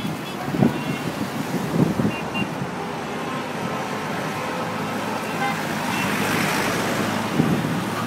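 Busy city street traffic: a steady wash of car engines and road noise, with a couple of brief car-horn toots about two seconds in.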